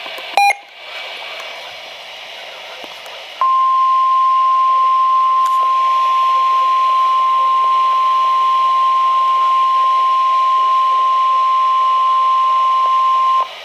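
NOAA Weather Radio 1050 Hz warning alarm tone: one steady pure tone lasting about ten seconds, starting a few seconds in and cutting off sharply near the end, the signal that a new warning broadcast follows. It sounds over radio hiss, with a brief loud click about half a second in.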